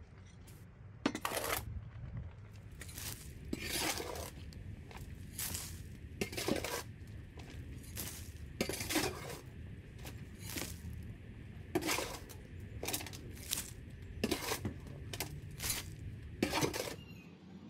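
Repeated strokes of a metal garden tool scraping and clinking through soil and stones, roughly one a second, over a low steady rumble.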